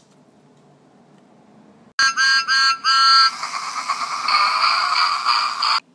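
Motorized Whistling Thomas the Tank Engine toy running after being switched on: about two seconds in, its whistle gives three short toots, then a hissing steam sound carries on, cutting off suddenly near the end.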